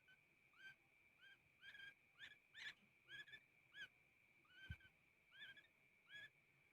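Young, still hand-fed woodpecker giving short chirping calls, about ten of them, repeated every half second or so, with one low knock about two-thirds of the way through.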